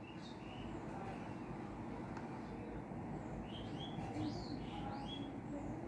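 Faint steady room noise with a few short bird chirps, clustered between about three and a half and five seconds in.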